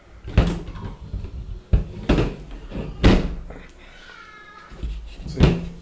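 Knocks and clunks of a graphics card's circuit board and its metal cooler and shroud being pulled apart and set down on a table, about five sharp knocks.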